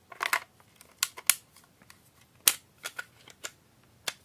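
About eight sharp plastic clicks and snaps as a gumstick rechargeable battery is pushed into a Sony WM-EX610 Walkman and its cassette door is opened.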